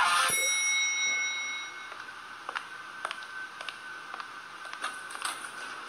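Music cuts off, and a single elevator chime rings and fades over about a second and a half. A faint steady high hum with a few small clicks follows.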